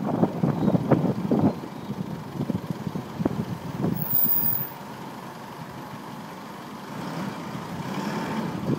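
Wind rush and road rumble on a camera carried on a moving bicycle, with many short knocks and rattles over the first half. It then drops to a quieter, steady rush.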